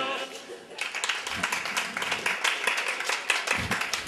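Audience clapping, a spread of many hands that builds up about a second in and keeps going.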